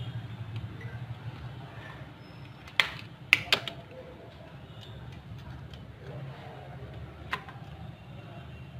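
A few sharp clicks and taps, four close together about three seconds in and one more near the end, over a steady low hum: a phone and small tools being handled on a repair bench.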